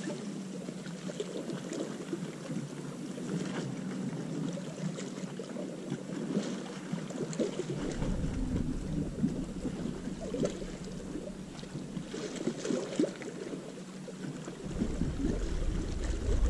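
Sea wash along the shore with wind on the microphone, a steady rushing noise with a few faint ticks. The wind rumble comes in gusts about halfway through and again near the end.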